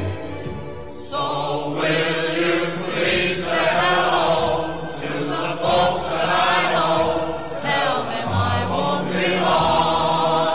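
Background music: sung voices with vibrato, choir-like, over low bass notes.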